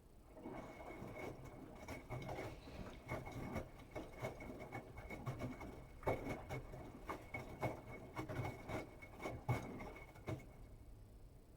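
Bosch Serie 8 front-loading washing machine mid-wash on a hot cotton cycle: the drum turns and the wet laundry tumbles and sloshes with irregular soft knocks over the motor's hum and a faint steady high whine. About ten seconds in, the drum stops for its pause between turns.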